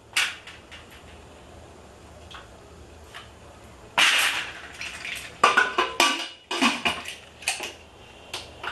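Aluminium pressure cooker being closed: a scrape of the lid going in about halfway through, then a run of sharp metal clanks as the lid is clamped and the whistle weight set on the vent.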